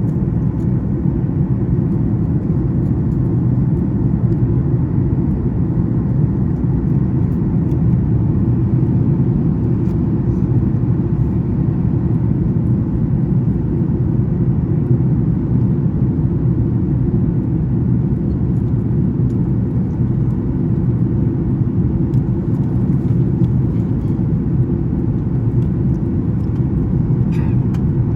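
Steady low rumble inside the cabin of a Boeing 737 MAX 9 airliner in flight: the CFM LEAP-1B engines and the airflow over the fuselage, heard from a seat in the rear cabin.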